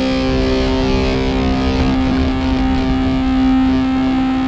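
Distorted electric guitar holding one long, loud chord that rings out steadily.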